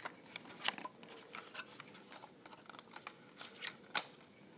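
Scattered light clicks and taps of hands handling a small white plastic drone, its arms and propellers knocking as it is turned over, with a sharper click about four seconds in.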